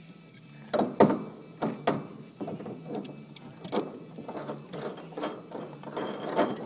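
Metal hand tools, pliers and wrenches, clicking and clanking irregularly against the metal pipe fittings of a solar hot water panel, with the sharpest knocks about a second in.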